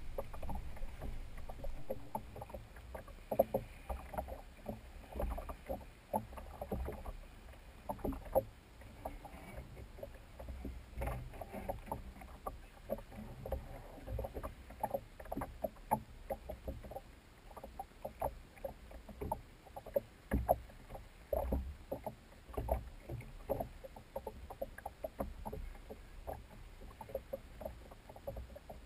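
Small waves slapping irregularly against the hull of a small rowboat, several knocks a second, some louder than the rest.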